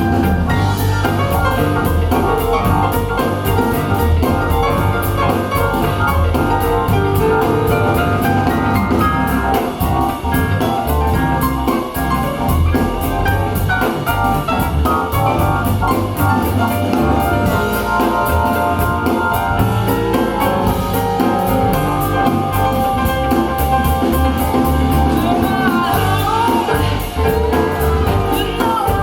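Jazz music with drum kit and piano, played back through a pair of PSB Alpha P5 bookshelf speakers.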